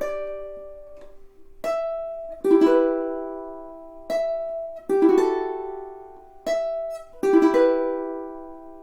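All-solid koa jumbo tenor ukulele played unaccompanied. The last notes of a quick picked run ring out. Then three pairs of chords are played, each pair about a second apart and each chord left to ring and die away.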